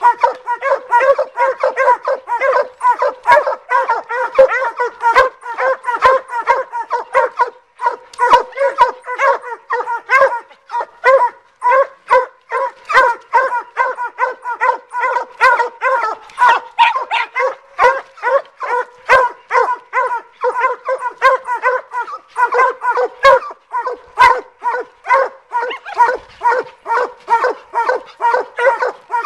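Two Walker coonhounds barking in rapid, continuous chop barks, several a second: hounds treeing on a raccoon.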